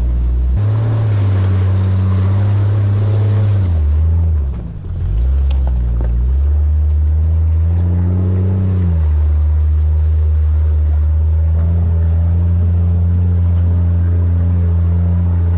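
Jeep Grand Cherokee ZJ's 4.0 inline-six engine pulling at low speed on a trail, a steady low drone that drops off briefly about four seconds in and swells in a short rev around eight seconds.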